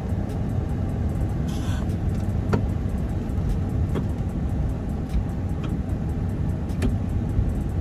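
1979 Chrysler Cordoba's engine idling steadily, a low even rumble, with a few faint clicks over it.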